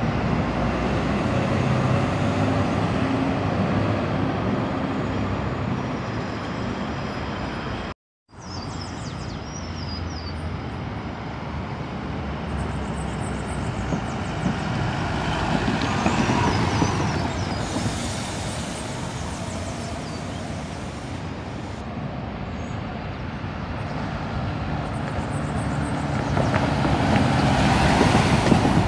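Diesel city buses running as they drive through a bus terminal, with an engine rumble and traffic noise. The sound breaks off for a moment about a third of the way in, then one bus draws close and passes, growing loudest near the end.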